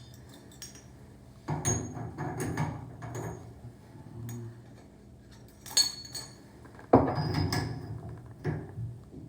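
Metal tools and parts clinking and knocking against a shower valve body during a diverter repair, in several clusters of sharp strikes with a bright ring, the loudest about seven seconds in.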